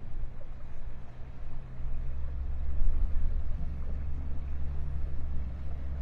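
Boat engine running steadily underway, a low drone that grows louder about two seconds in.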